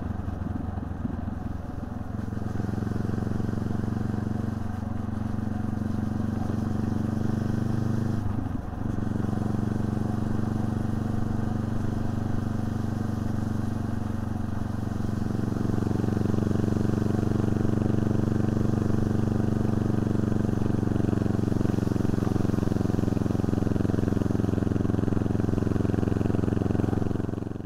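Honda CB500X's parallel-twin engine running steadily as the motorcycle rides along, with a brief dip in level and pitch about eight seconds in, and a little louder from about halfway on.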